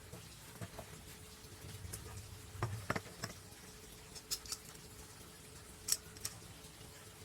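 Scattered light clicks and taps of workpieces and tools being handled while gluing up the jig, over a faint steady hum.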